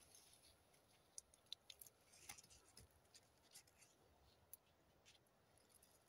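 Near silence: faint outdoor quiet with scattered soft, high ticks and clicks, a cluster of them a little past two seconds in.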